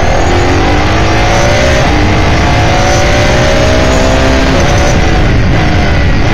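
The 5.0-litre Ford V8 of an S5000 open-wheel race car, heard from the cockpit: it revs up at full throttle out of a corner, shifts up once about two seconds in, and climbs again. Near the end the revs fall away as the driver lifts and brakes, with heavy wind and road noise on the onboard microphone.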